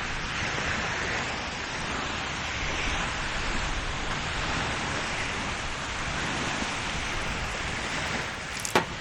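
Steady rushing of wind and lake waves along the shore, with one sharp click near the end.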